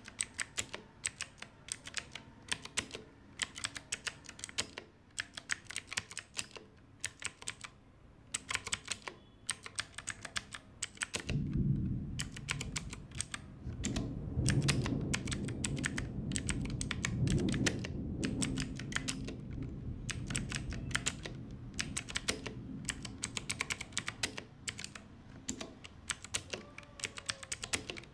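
Typing on a mechanical keyboard with clicky blue switches: fast, irregular runs of sharp key clicks with brief pauses. A low rumble sits underneath through the middle stretch.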